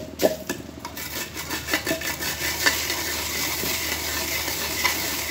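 Wooden pestle grinding whole coriander seeds and dried red chillies in a mortar by hand: a few sharp knocks at first, then a steady gritty rubbing as the pestle is worked round through the seeds.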